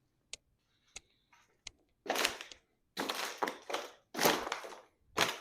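Cardboard and plastic packaging being pulled open and handled: a few sharp clicks, then several loud crackling, crunching bursts.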